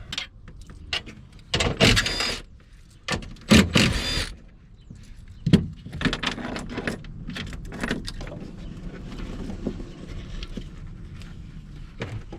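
Metal clinks and rattles of hand tools and bolts while the cables and fasteners of a Honda IMA hybrid battery are undone. There are two louder rattling bursts and a sharp knock, among lighter clicks and handling noise.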